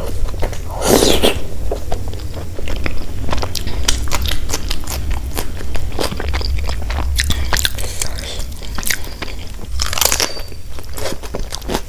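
Close-miked eating: crunchy bites into fried kachori and paratha, then chewing full of crisp crackles, with loud crunches about a second in and again near the end. A steady low hum runs underneath.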